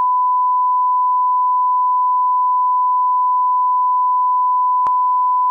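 Steady 1 kHz line-up tone, the single pure beep that goes with colour bars as a level reference, held at an even loudness, with a faint click near the end.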